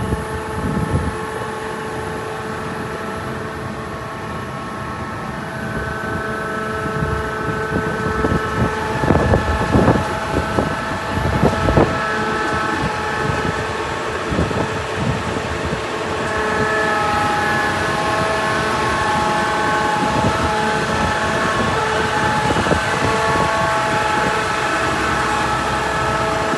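A machine's engine running steadily, with a cluster of loud knocks about a third of the way in.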